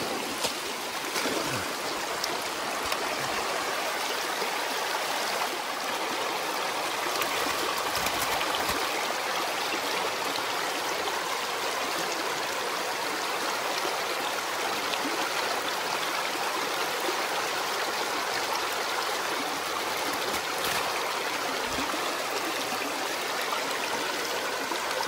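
Fast-flowing mountain stream rushing steadily, an even, unbroken water noise.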